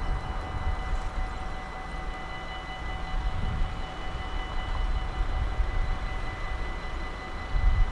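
Dutch level-crossing warning bells ringing steadily with the barriers down, signalling the crossing is closed for a train, over a low rumble.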